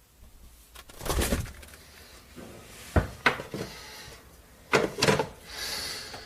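Refrigerator door sound effects: several knocks and clunks, then a brief hiss near the end.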